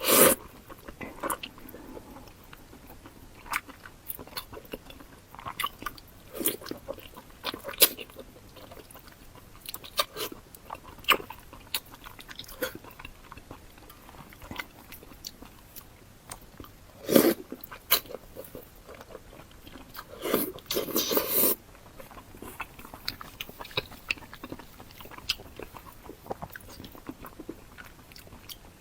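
Close-miked eating of jiguanyou (fatty pork intestinal membrane): intermittent bites and chewing with wet mouth clicks and smacks, and two louder, longer bites a little past the middle.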